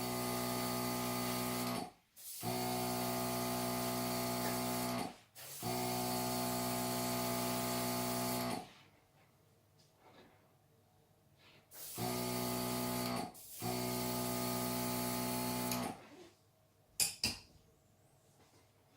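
Powered paint sprayer running in five bursts of a couple of seconds each: a steady motor buzz with the hiss of spraying paint, each burst starting and stopping sharply. A couple of light clicks come near the end.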